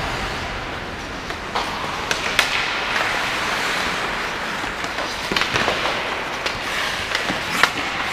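Ice hockey skates scraping across the ice, with sharp clacks of sticks striking the puck and ice several times, the loudest near the end.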